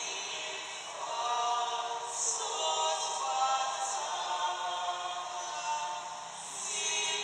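A group of voices singing a hymn together, the closing hymn at the end of Mass, with long held notes and a short dip between phrases about a second in and again near six seconds.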